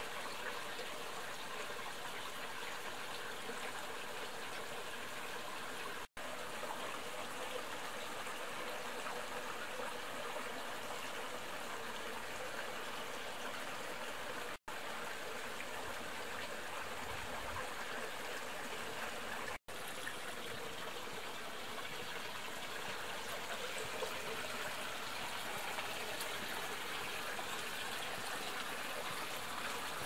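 Small mountain stream flowing steadily, a continuous rush and trickle of water. It cuts out to silence for an instant three times.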